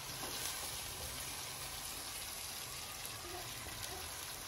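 Raw chicken frying in hot ghee with browned onions and masala in a large aluminium pot: a steady sizzling hiss.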